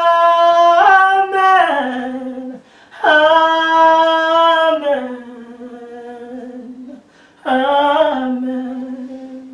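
A woman singing alone, unaccompanied, in three long held phrases, each stepping down in pitch as it ends.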